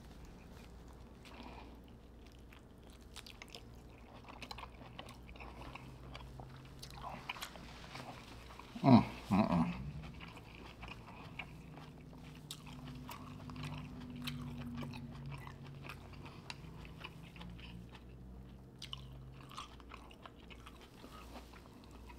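Close-miked chewing and wet mouth smacking of a seafood boil being eaten, with many small sharp clicks. About nine seconds in there is a brief, louder vocal sound.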